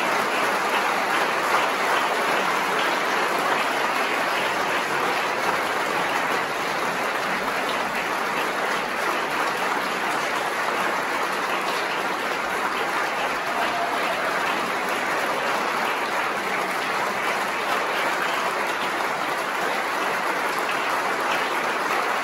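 Audience applauding steadily, with no break.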